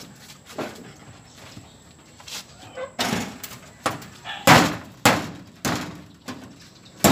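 Hammer nailing a corrugated galvanized iron sheet to its wooden frame: a few light taps at first, then steady blows about every half second from about three seconds in, each with a short tinny ring from the sheet.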